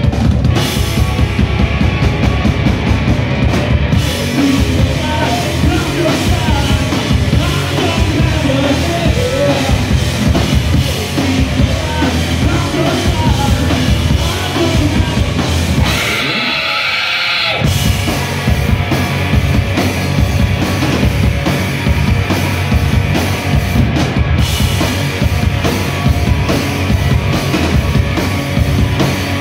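Live rock band playing loud: two electric guitars, bass guitar and drum kit. About halfway through, the drums and low end drop out for a second or so, leaving a high ringing tone, before the full band crashes back in.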